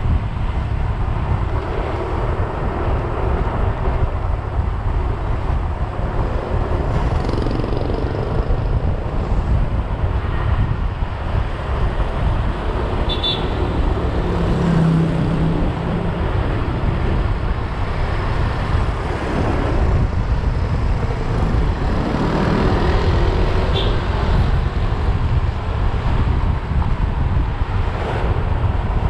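Wind buffeting the microphone of a camera moving at cycling speed, a steady low rumble with road and tyre noise mixed in.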